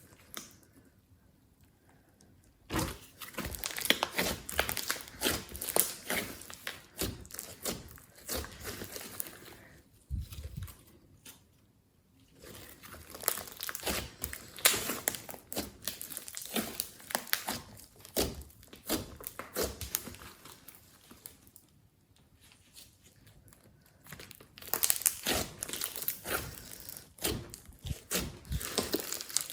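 Glossy slime being squished and kneaded by hand, giving dense runs of crackling, popping clicks. There is a quiet pause at the start and another about two-thirds of the way through.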